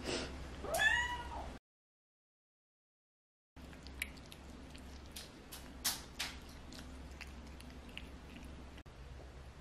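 A Munchkin short-leg cat meows once about a second in, a begging meow that rises and then falls in pitch, asking for cabbage. A few sharp clicks follow later.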